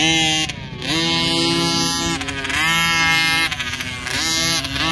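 Dirt bike engine running under throttle, its pitch climbing and then holding steady, falling away and climbing again about three times as the rider works the throttle.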